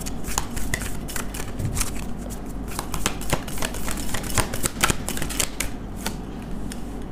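A deck of reading cards shuffled by hand: a dense, irregular run of quick card clicks and flicks.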